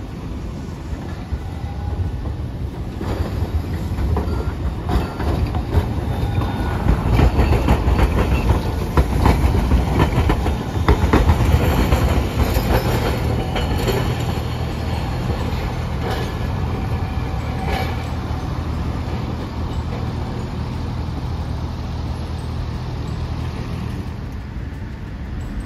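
Hiroden 700-series streetcar rolling past, its wheels clacking over rail joints and the crossing, over a steady low running hum. The clacks are loudest about a third of the way in and die out after the middle, while the hum carries on.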